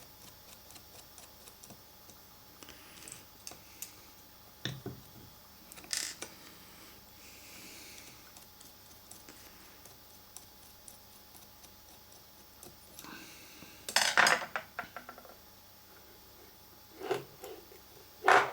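Scattered clicks and clinks of small metal parts being handled as the Hall sensor is taken off the lathe's tool turret, with a louder cluster of clatter about fourteen seconds in.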